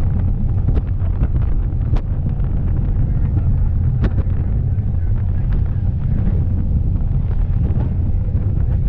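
Wind buffeting the microphone on the open deck of a moving water taxi, over the boat's steady low rumble as it runs through the water.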